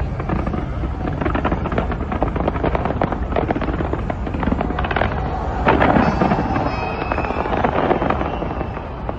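Fireworks going off in rapid succession: a dense, continuous crackle of many small reports over a low rumble, with a louder cluster of bursts about six seconds in.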